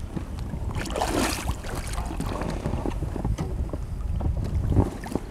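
Water splashing as a hooked zander thrashes at the surface beside an inflatable boat and is grabbed by hand, loudest about a second in, with scattered knocks of handling. A steady wind rumble runs across the microphone.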